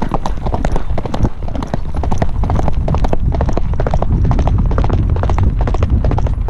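Fast hoofbeats of a galloping horse on a gravel track, heard from the saddle. A heavy low wind rumble on the helmet camera's microphone builds about two seconds in.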